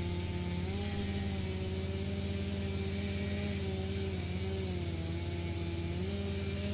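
Wood chipper's engine running steadily, its pitch sagging slightly and picking back up a couple of times.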